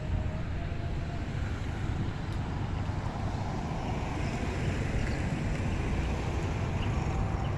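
Outdoor street ambience: a steady low rumble of road traffic, with wind on the microphone.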